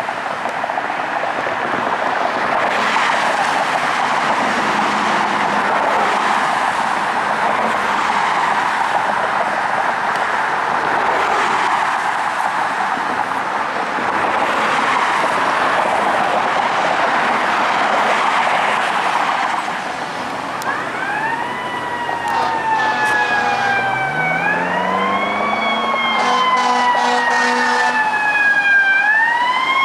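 Steady rush of road traffic. About two-thirds of the way in, the siren of a 2012 Pierce Velocity ladder truck starts up. It winds up quickly, slides slowly down, and winds up again in cycles of about four seconds, with steady air horn blasts sounding over it near the end.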